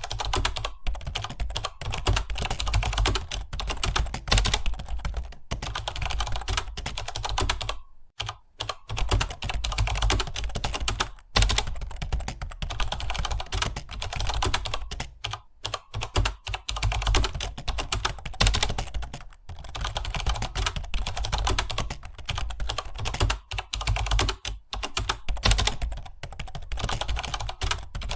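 Fast, continuous typing on a computer keyboard, dense rapid key clicks broken by a few brief pauses, about eight seconds in and near the end.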